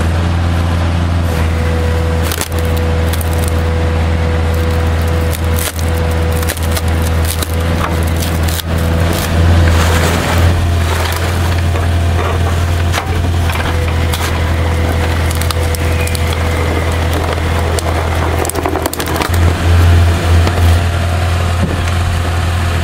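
Excavator engine running steadily while its hydraulic log-splitter attachment drives a wedge through logs, the wood cracking and splintering again and again. A steady whine runs under the first half, and the loudest cracks come about halfway through and near the end.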